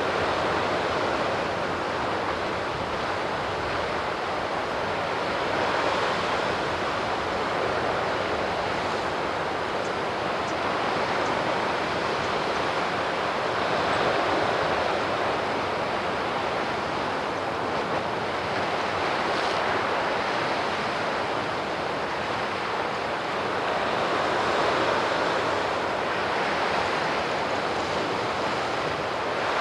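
Sea surf washing on the shore: a steady wash of waves that rises and falls gently every eight to ten seconds.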